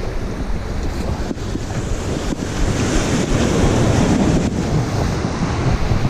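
Wind buffeting the microphone over surf washing against the boulders of a rock jetty, a steady rushing noise heaviest in the low end.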